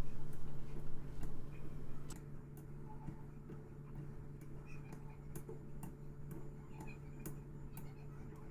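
Straight razor being honed on a wet 8K synthetic water stone: light, irregular clicks as the blade is flipped on its spine between strokes, over a steady low hum.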